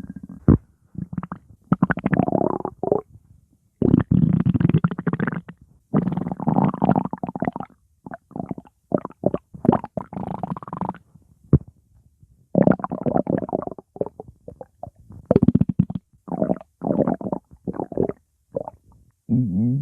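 Stomach growling in irregular bursts of under a second to about two seconds, with short pauses between them.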